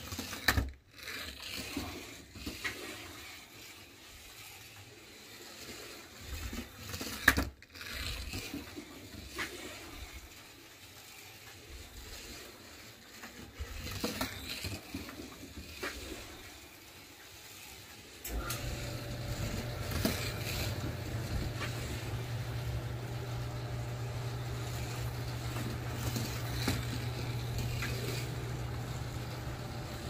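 1/24-scale slot-car dragster on a plastic slot track: scattered clicks and clattering knocks at first, then, a little past halfway, its small electric motor sets up a steady hum with a faint whine that holds on.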